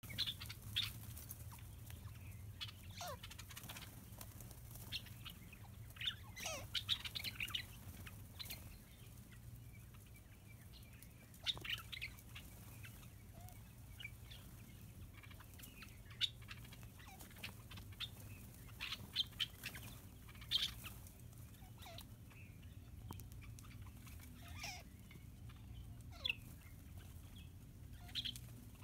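Birds chirping and calling in short, scattered notes, some sliding sharply downward in pitch, over a steady low hum.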